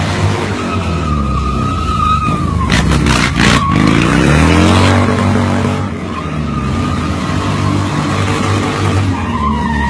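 Harley-Davidson V-Rod's V-twin engine held against the rev limiter during a burnout, with the spinning rear tire squealing in a steady high tone. About three seconds in there are a few sharp cracks, and the engine note dips and then climbs back.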